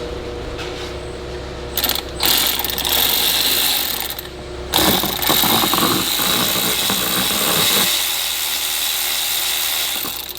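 Ratchet wrench on a long extension clicking rapidly in two long runs, with a brief pause about halfway, as the turbo inlet tube is loosened from the turbocharger.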